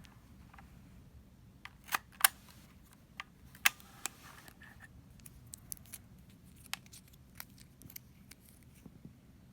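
A plastic label maker being handled, giving a string of sharp clicks at irregular intervals. The loudest are a close pair about two seconds in and another a little past three and a half seconds, which is followed by a short rustle.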